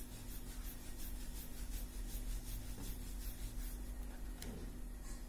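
Wooden rolling pin rolling chapati dough on a wooden board: soft rubbing strokes about three a second, stopping a little before the end, followed by a single light click. A low steady hum runs underneath.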